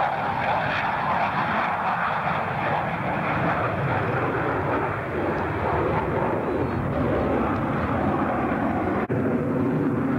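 Jet roar from a BAe Nimrod's four Rolls-Royce Spey turbofans as it flies past and climbs away, loud and steady, with a low hum underneath. A sharp click about nine seconds in.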